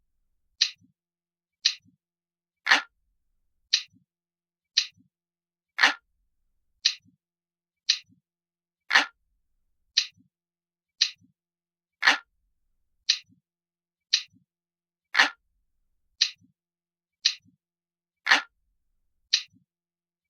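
Clock ticking sound effect, a steady tick about once a second, with every third tick fuller and heavier than the two between.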